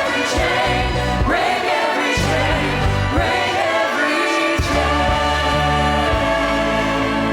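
Church choir singing in harmony with an orchestra accompanying, a worship song with sung phrases over sustained chords and a steady bass.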